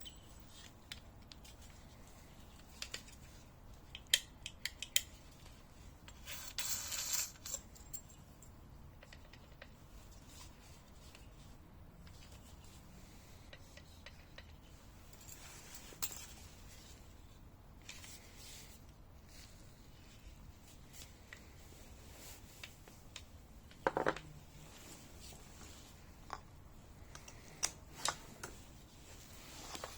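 Quiet handling noises: scattered light clicks and knocks, with a short rustle about seven seconds in and a sharper knock about twenty-four seconds in, as the angle grinder and its packaging are handled.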